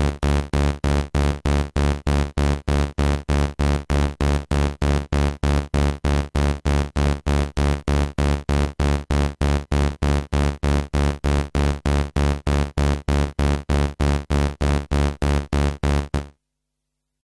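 Low, buzzy synthesizer tone gated by a Doepfer A-141-2 VCADSR envelope through an exponential VCA. It repeats steadily at about four notes a second, each note starting sharply and dying away. The notes stop abruptly about 16 seconds in.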